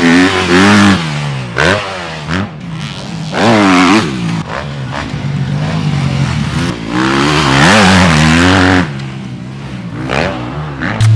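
Motocross dirt-bike engines revving hard and easing off again several times, their pitch climbing and falling as the bikes ride the track.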